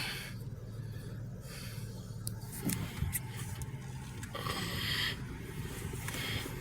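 Car running at low speed, heard from inside the cabin: a steady low engine and road hum, with a few faint clicks and a brief swell of road noise about four and a half seconds in.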